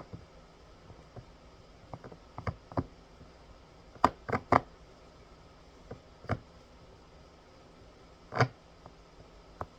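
Tarot cards being handled, with scattered taps and soft knocks. The loudest is a quick cluster of three about four seconds in, and there is a duller thump near the end.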